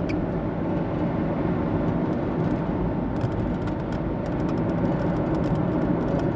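Steady car cabin noise: a low, even rumble of engine and tyres on the road inside a car.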